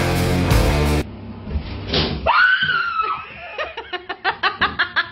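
Loud rock music cuts off about a second in. A short sharp sound follows, then a woman's high scream falling in pitch for about a second, then fast rhythmic laughter.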